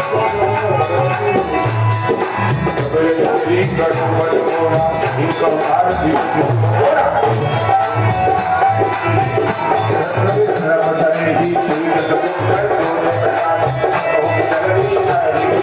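Rhythmic music with a steady drum beat and jingling percussion.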